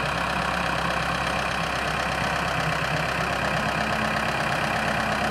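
Diesel engines of two tractors, a Belarus 510 and a Massey Ferguson 385, running steadily while hitched back to back for a tug-of-war pull.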